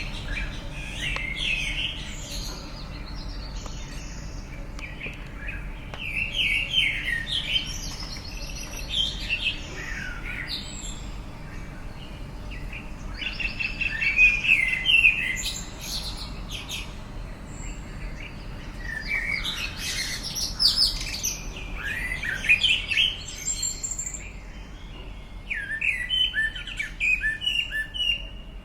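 Birds chirping and singing in repeated short bouts of quick, high notes, several bursts every few seconds.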